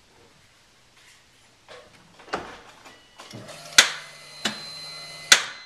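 Subaru WRX turned with the key but not cranking: several sharp clicks, with a steady electrical hum between the middle clicks and no engine turning over. The starter only clicks because the battery-to-starter power cable is corroded through.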